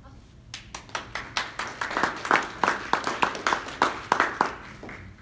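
Small audience applauding, starting about half a second in, with individual close-by claps standing out, then thinning out near the end.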